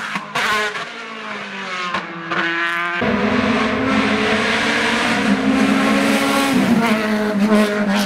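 Hill-climb sports prototype race car engines at high revs. A rising rev is heard first, then a louder car holds a high, fairly steady engine note as it climbs closer and drops in pitch once near the end.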